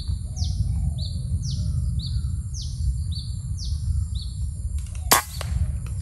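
A bird call repeats about once a second, a short steady whistle followed by a falling note, over a low wind rumble on the microphone. About five seconds in, a single sharp crack: a shot from the scoped air rifle, followed by a faint click.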